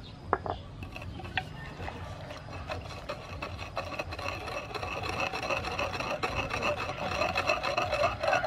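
Wooden pestle grinding and stirring a wet chili, garlic and fish-sauce paste in a wooden mortar: a continuous rasping rub of wood on wood that grows louder, after a couple of light knocks near the start.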